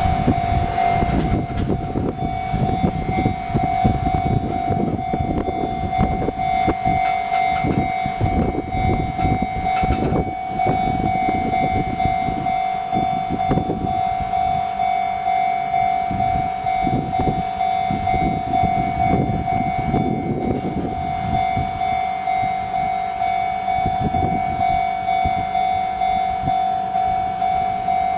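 Japanese level-crossing alarm ringing its steady electronic ding at a regular beat, while a train rumbles and clatters over the crossing. The train's wheel noise is heaviest for the first twenty seconds or so, then eases while the bell keeps ringing.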